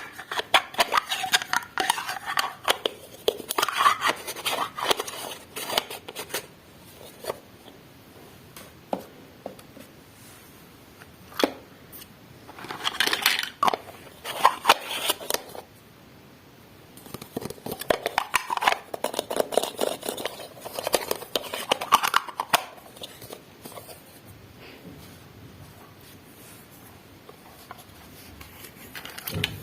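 Hands unpacking miniature plastic toy kitchen pieces: scraping, crinkling and light clicking of plastic and packaging, in several bursts separated by quiet pauses.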